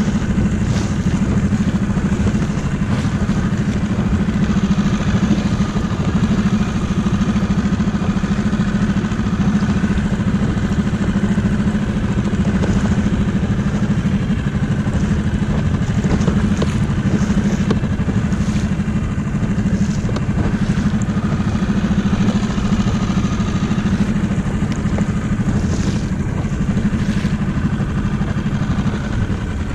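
Small outboard motor on an inflatable boat running at a steady slow trolling speed, a continuous even drone with no change in pitch.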